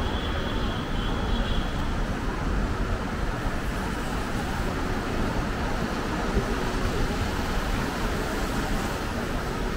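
Steady city traffic noise: an even rumble of road vehicles passing on the street and elevated road.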